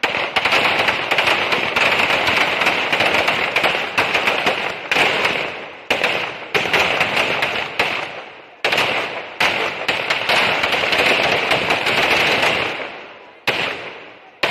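Strings of firecrackers packed inside a burning Ravana effigy going off in a dense, rapid crackle of bangs, like machine-gun fire. Fresh loud bursts break in several times, about five, six, eight and a half, nine and a half and thirteen and a half seconds in. The crackle briefly thins out just before the last burst.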